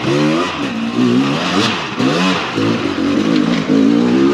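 Dirt bike engine revving hard in repeated surges as it climbs a steep rock ledge, its pitch rising and falling with each twist of the throttle.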